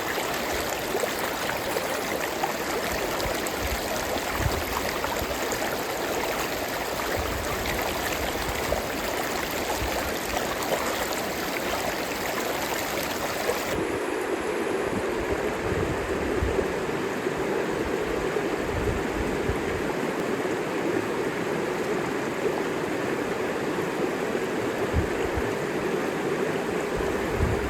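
River water flowing in a steady, noisy rush. About halfway through the sound changes abruptly to a duller, deeper rush with less hiss.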